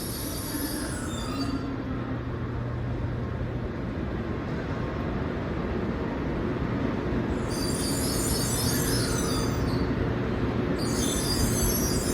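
Tokaido Shinkansen train rolling slowly into a platform, a steady low hum growing gradually louder, with high-pitched wheel squeal about seven seconds in and again near the end.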